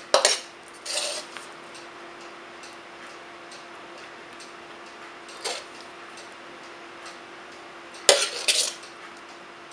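Metal spoon clinking and scraping against a ceramic plate as curry is spooned around it. A pair of clinks comes at the start, one about five seconds in, and another quick pair near the end, over a faint steady hum.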